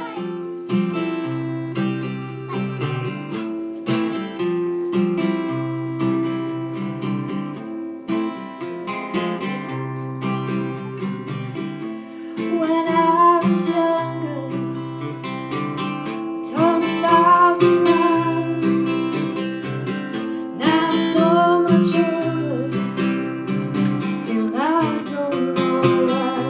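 Live acoustic band music: an acoustic guitar strummed in a steady rhythm over a bass line, and from about 12 seconds in a higher melody with sliding pitch comes in in short phrases over it.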